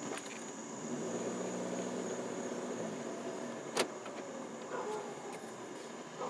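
Car rolling at walking pace: a low motor hum for about two seconds, then a single sharp click near the middle. A steady high insect trill runs underneath.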